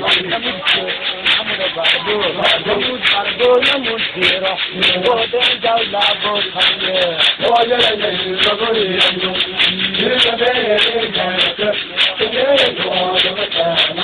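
Crowd of dancers singing together over a fast, steady beat of sharp strikes, about two to three a second, loud throughout.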